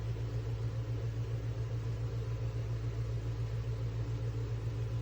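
Small USB clip-on mini fan running at its strongest of three speeds: a steady low hum with an even rush of air.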